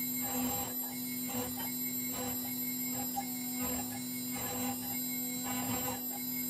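CNC router spindle running with a 60-degree V-bit cutting lettering into an MDF sign: a steady hum and whine, with bursts of cutting noise roughly once a second as the bit moves through the letters.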